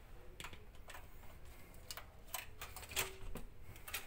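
Light, irregular clicks and taps of a ship's cabin door being unlocked and its handle worked, the door coming open near the end.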